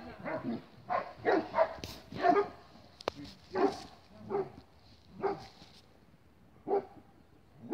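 Large guard dogs barking at the fence line in a guarding alert. There are about ten single barks, several in quick succession in the first couple of seconds, then one every second or so, thinning out.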